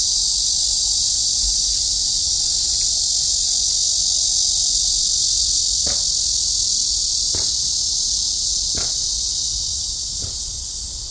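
Cicada chorus: a loud, steady, high-pitched buzzing drone that eases off slightly near the end, with a few faint clicks about a second and a half apart in the second half.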